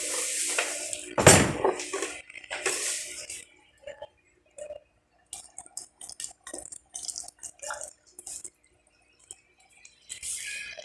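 Metal clanking and knocking as a demolition hammer and its parts are handled, with one loud knock about a second in, followed by scattered faint clicks and taps.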